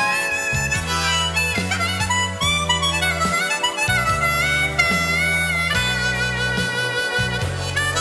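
Diatonic harmonica in natural minor tuning playing a slow blues in B minor, with notes bent up and down. It plays over an accompaniment with a low bass line.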